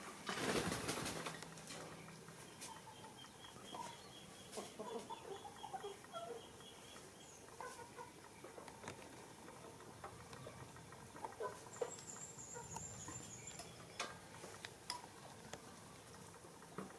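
Chopsticks and a spoon clicking and scraping in a ceramic bowl of noodles, in sparse light clicks, with a brief rustle at the start. Faint bird chirps in the background, including a quick run of high chirps and later a thin high call.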